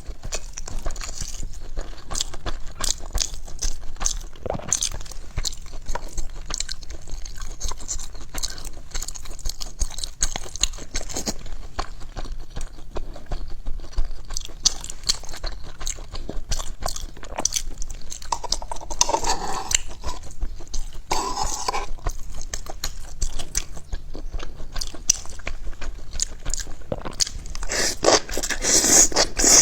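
Close-miked chewing and crunching of food: a dense run of short, crisp crunches as a person bites and chews, with a couple of longer, louder stretches about two-thirds of the way through and near the end.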